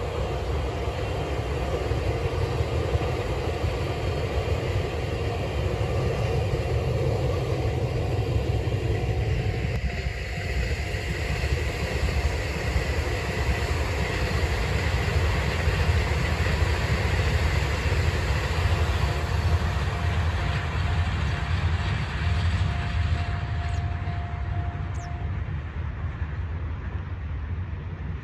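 Taiwan Railway electric multiple-unit trains running past on the line: a steady rumble of wheels on rail. The sound changes about ten seconds in, from a TEMU2000 Puyuma tilting train to an EMU3000, which runs on with a thin steady whine and fades as it draws away near the end.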